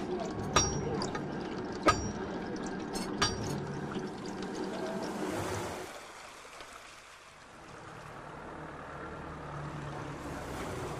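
Blacksmith's hammer striking hot iron on an anvil: three sharp, ringing blows about 1.3 seconds apart over a steady hiss. The blows stop after about four seconds and a fainter steady hiss remains.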